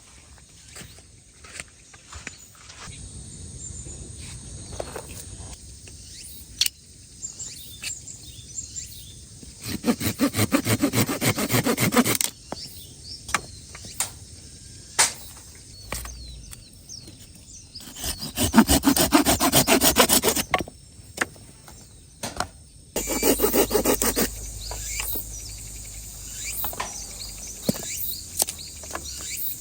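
Hand saw cutting through wood in three bursts of quick back-and-forth strokes, each lasting about two seconds, with scattered clicks of wood being handled in between.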